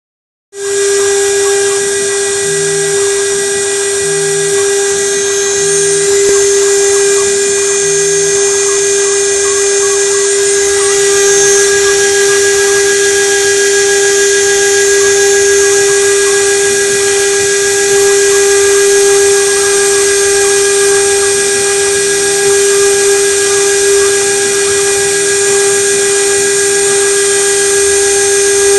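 Homemade CNC router's 2.2 kW spindle running at speed with a steady high whine while its engraving bit mills circuit traces into a copper-clad PCB board.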